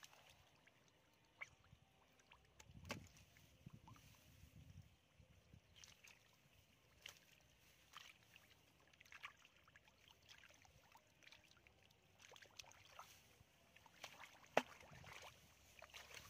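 Faint squelching and splashing of hands and feet working through shallow mud and water, in small irregular sloshes, with one sharp click near the end.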